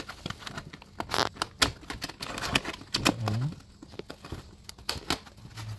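Thin plastic panels of a folding shoe box being handled and pressed into place, with irregular clicks and crinkling as a locking tab is pushed into its slot.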